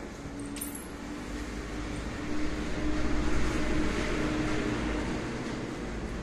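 Banarasi silk saree rustling and swishing as it is draped over the shoulders and body, louder in the middle, over a faint steady low hum.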